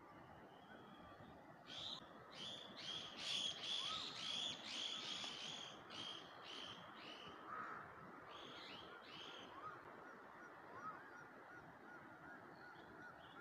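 Birds calling: a run of short, repeated honking calls about two a second, fading out about halfway through, with faint scattered chirps over a steady background hiss.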